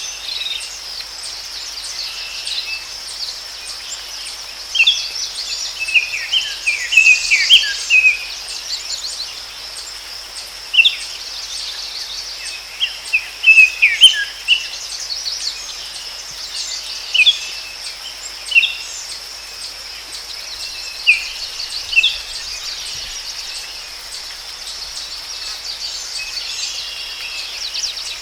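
Forest ambience: a steady high-pitched insect chorus, with birds chirping now and then in clusters of short, falling notes.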